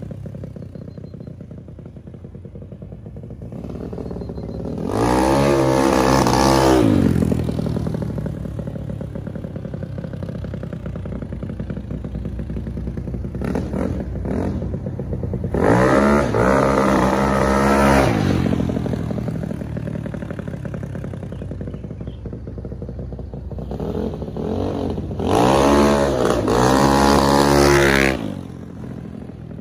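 Ruckus-style scooter's 310cc Yamaha engine idling and being revved three times. Each rev climbs in pitch, is held for about two seconds, then falls back to idle.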